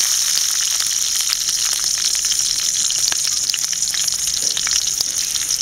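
Whole green chillies frying in hot oil in a pan: a steady sizzling hiss with scattered small crackles and pops.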